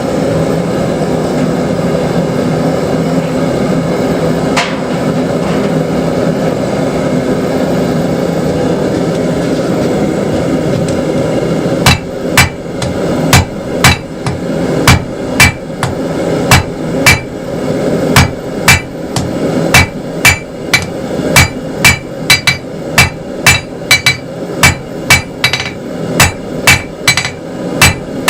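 Hand hammer striking hot 3/8-inch square steel bar on an anvil, drawing out its end, about two blows a second with a bright ring on each strike. The blows start about twelve seconds in, after a steady rushing noise.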